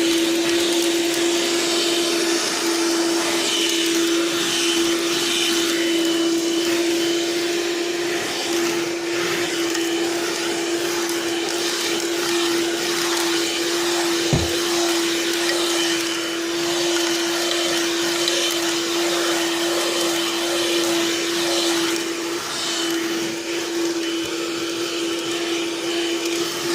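12-volt vacuum cleaner, run off a van's leisure battery, running steadily with a constant motor whine over the hiss of its suction, fitted with a freshly changed attachment. One brief knock comes about halfway through.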